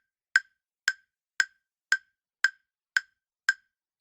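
Quiz countdown timer sound effect: a sharp wood-block-like tick repeating evenly about twice a second, seven ticks in all.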